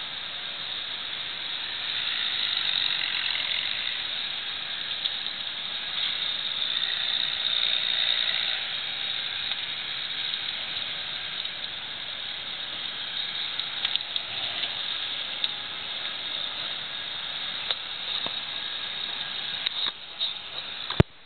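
Burning brush pile hissing and crackling steadily. A few sharp clicks and knocks come in the last several seconds, as the camera is moved.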